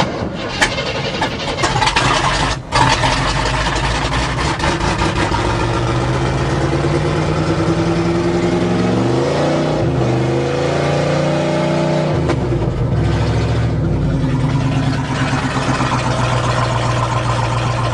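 GMC truck's 400 small-block V8 starting on a freshly reprimed fuel system: it sputters unevenly for the first few seconds, then settles into a steady run. About eight seconds in it is revved up, then it drops back to idle around the twelve-second mark.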